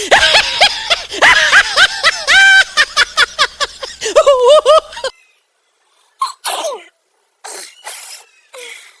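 High-pitched giggling laughter for about five seconds, cut off abruptly, then several short, breathy bursts of stifled sneezing as a feather tickles the nose.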